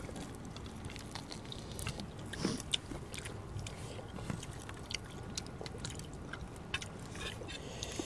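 People eating at close range: quiet chewing with scattered light clicks of a spoon and fingers on plates.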